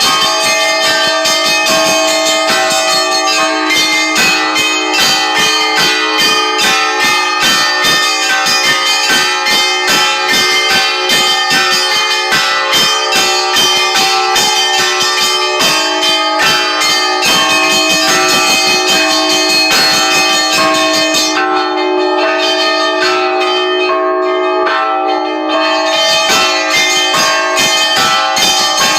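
Orthodox church bells rung by hand in the belfry: a lively, continuous peal of rapid small-bell strikes over the sustained ringing of larger bells. The small bells fall silent for a few seconds about three-quarters of the way through while the larger bells keep ringing.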